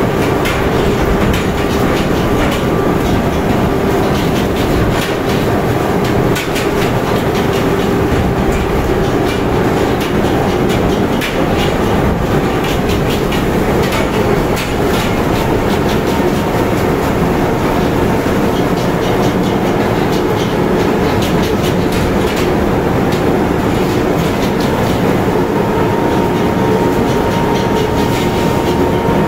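Whole tuna thudding down a metal chute and splashing one after another into a fish hold full of chilled water. Behind them runs the steady hum and rattling clatter of the deck conveyor machinery.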